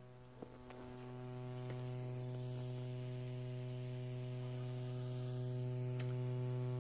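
Steady electrical buzz from an Alesis SamplePad 4's main output played through a 12-inch speaker: a hum with one strong low tone and a ladder of overtones, growing louder over the first two seconds and then holding steady. The buzz does not change with the volume setting, which the owner takes for a grounding fault in the unit's design.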